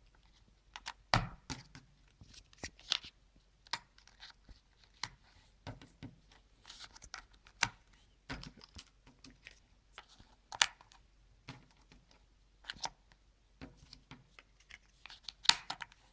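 Cardboard jigsaw puzzle pieces being handled and pressed into place: irregular small clicks, taps and rustles.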